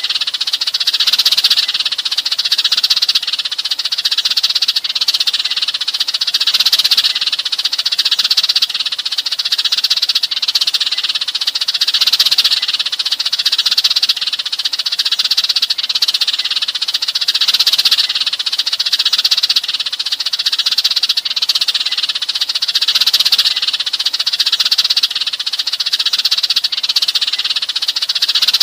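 A flock of sparrows chirping and chattering in a dense, overlapping chorus that never lets up. This is sparrow flock-calling, the sound used to draw other sparrows in.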